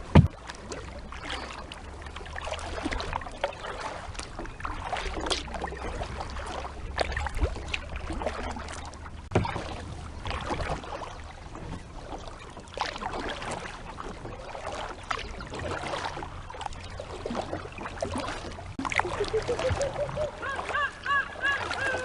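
Kayak paddles dipping and splashing in the water in irregular strokes, with a steady low wind rumble on the microphone. A sharp knock comes right at the start, and a wavering high-pitched call is heard near the end.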